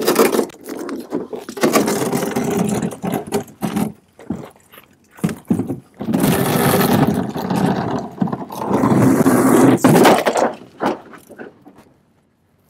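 Cut-free sheet-metal car roof being pulled off a car lying on its side and dragged away, metal scraping and clattering on the pavement. It comes in two long stretches with a lull about four seconds in, and dies away near the end.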